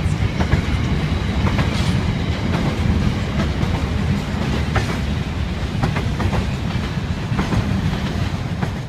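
Heritage passenger carriages of a steam-hauled train rolling away along the track: a steady low rumble with irregular clicks and clacks of the wheels on the rails.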